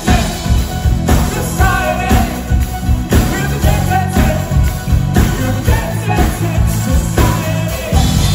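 Live 1980s synth-pop band playing on an open-air stage, heard from the audience seats: a male lead singer over drums, keyboards and guitar, with a steady beat of about two strokes a second.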